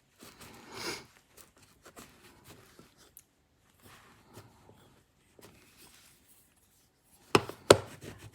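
Quiet handling of knife parts and small tools at a bench: scattered faint clicks and rustles, then two sharp clicks close together near the end.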